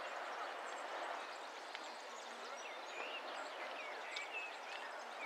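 Outdoor ambience: an unbroken murmur of many people talking, with scattered short bird chirps over it.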